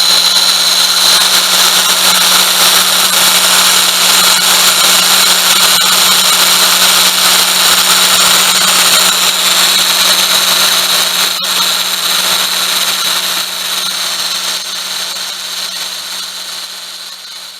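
Daihatsu Tanto engine bay running with the air conditioning on: a loud, steady mechanical whir with a constant hum and a high grinding whine from a failing pulley bearing. It fades away over the last several seconds.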